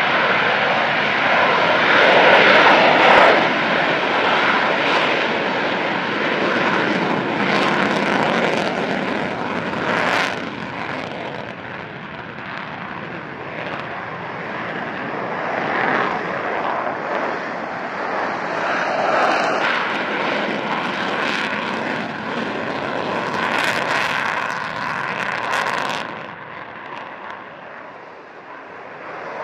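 Fighter jet engines running at high power on the runway: a loud, steady rush of jet noise with a thin whine through it, swelling and easing, then dropping off sharply about three seconds before the end.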